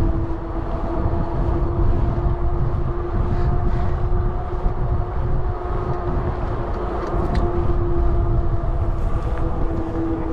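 Wind rushing over the microphone of a camera on a moving bicycle, under a steady droning hum.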